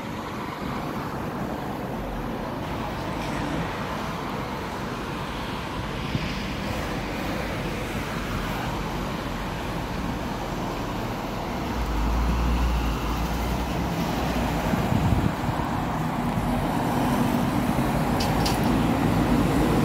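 Road traffic on a multi-lane road: a steady wash of tyre and engine noise, with a heavier low rumble setting in about twelve seconds in and growing louder as a bus passes close by near the end.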